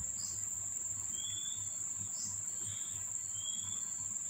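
Mother cat purring while her kittens nurse: a low pulsing about twice a second, under a steady high-pitched whine and a few faint short chirps.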